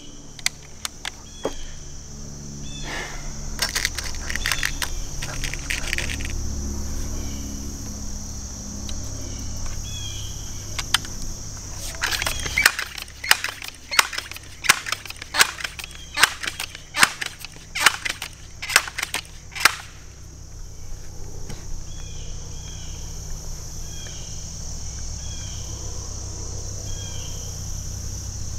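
Benjamin 392S multi-pump air rifle being pumped up: a run of sharp mechanical clacks, about two a second for some eight seconds, from the forearm pump lever being stroked, with a few single clicks earlier.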